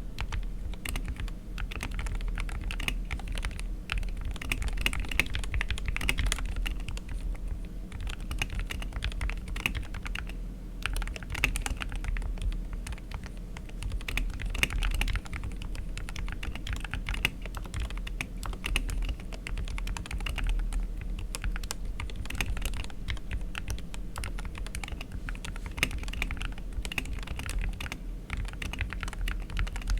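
Continuous typing on an SK-61 keyboard with Gateron Silver optical linear switches lubed with Krytox 205, ABS keycaps and foam in the case: a dense, steady run of keystroke clicks.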